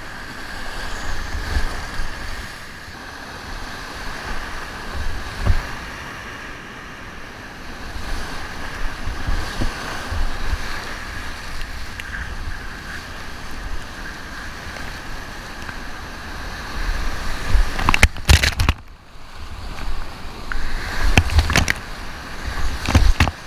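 Whitewater rapid rushing steadily, heard close up from a camera on a kayak running it, with low thuds and splashes of water against the boat. Loud crashes of water hit hard about three-quarters of the way through and again near the end.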